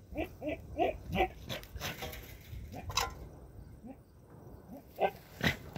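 Buck goat courting does, making a quick run of short, low grunts, about three a second, for the first second or so. Then rustling and a sharp knock about three seconds in, with another knock near the end.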